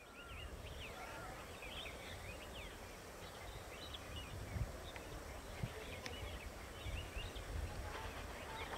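Small birds chirping, many short quick calls rising and falling in pitch, over a faint low rumble.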